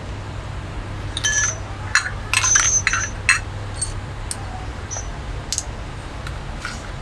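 Metal parts of an old leaking faucet being handled during disassembly: a run of light metallic clinks and taps with a brief high ring, busiest from about one to three seconds in, then a few scattered clicks.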